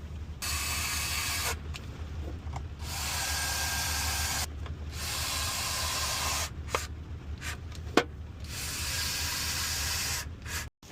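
Repeated rasping and scraping of plastic interior trim being worked back into place in several stretches of one to two seconds, with a sharp click about eight seconds in, over a low steady hum.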